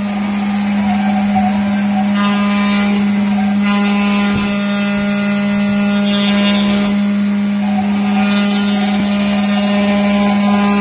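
Water-cooled high-frequency spindle of a CNC Shortcut 203 router running with a steady hum while its bit engraves lines into a wooden board. A rougher cutting noise comes and goes about four times as the bit moves through the wood.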